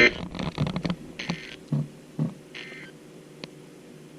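NOAA Weather Radio through a small radio speaker sending three short, buzzy digital data bursts about a second apart, the SAME end-of-message code that closes a broadcast alert, with a few dull knocks in between.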